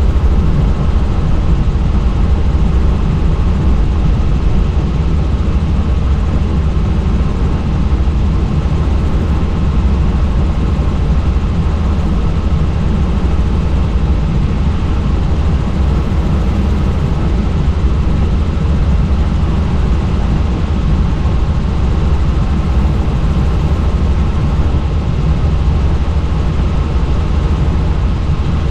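Helicopter in steady flight: its engine and rotor make a constant deep drone that does not rise or fall.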